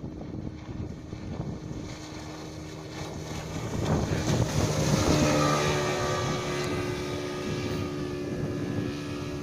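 Two-stroke speedboat engine running on converted LPG fuel. About four seconds in it gets louder and rises slightly in pitch, then holds steady.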